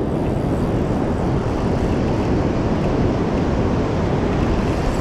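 Steady rumbling roar of wind buffeting the microphone, mixed with breaking surf.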